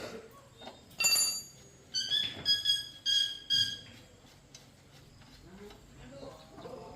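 Metal struck against metal about five times, each strike ringing briefly: one about a second in, then four quick ones at the same ringing pitch.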